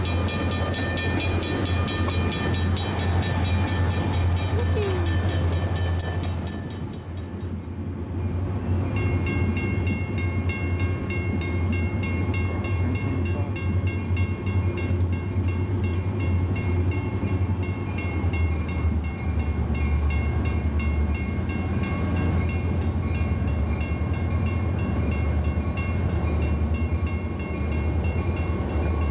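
Railroad grade-crossing warning bells ringing rapidly and evenly over a steady low rumble. About eight seconds in, the bell sound changes to a second crossing's bell, which rings on steadily.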